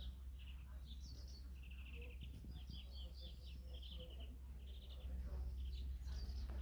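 Small songbirds singing in spring, a string of short, quick trilled chirps one after another, over a steady low rumble.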